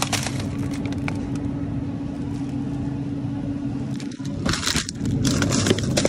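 Steady engine and road hum inside a moving car, with scattered crackles and clicks, more of them in the second half.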